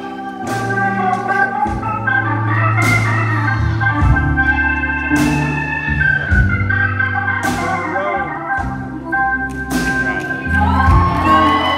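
Live band playing an instrumental passage led by a stage keyboard's organ sound, with held chords over bass and drums and a cymbal crash every couple of seconds.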